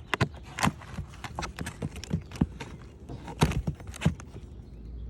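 Irregular sharp knocks and taps, a few a second, from hand tools working wood shakes and nails on a roof. The loudest knock comes about three and a half seconds in.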